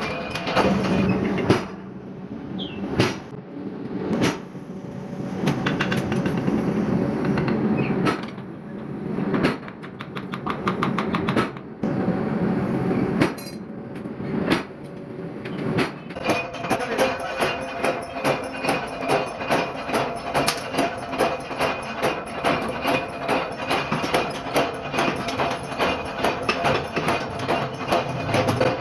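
Hammer forging of metal: irregular hammer strikes with clatter, then from about halfway through a fast, regular run of hammer blows.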